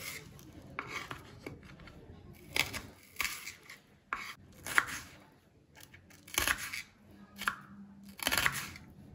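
Kitchen handling at a counter: irregular sharp clacks with short rustles, about one every second.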